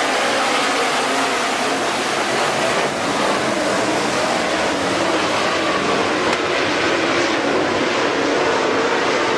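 A pack of dirt-track modified race cars running at speed, their engines sounding together as one loud, steady drone with wavering pitches.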